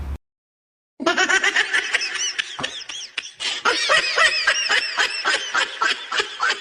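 Laughter in rapid short bursts, starting about a second in after a brief silent gap.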